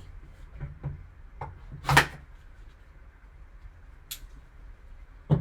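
Hand-handling sounds of a trading card box being opened: scattered light knocks and clicks, a louder knock about two seconds in and another near the end, with a brief scrape of packaging about four seconds in.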